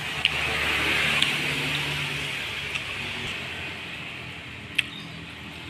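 Road traffic: a passing vehicle's noise swells over the first couple of seconds and then fades, with a low engine hum and a few faint clicks.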